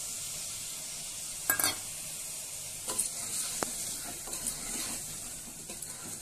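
Oil sizzling steadily in an aluminium pressure cooker as freshly added tomatoes are stirred in with a wooden spoon, the spoon knocking against the pot several times.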